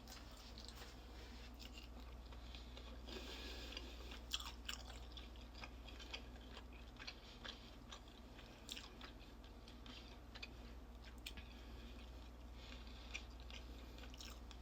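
A person chewing and biting into crispy fried chicken, faint, with scattered short crunches and clicks. A steady low hum runs underneath.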